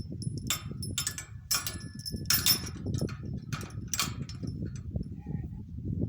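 Metal harness fittings clinking and rattling in about six short bursts as a donkey is hitched to a cart, over a steady low rumble.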